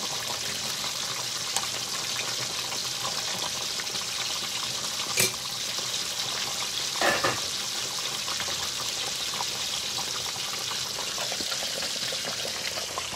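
Floured milkfish (bangus) fillets frying in hot oil in a large stainless steel pan: a steady sizzle and crackle, with a sharp click about five seconds in and a short clatter about seven seconds in.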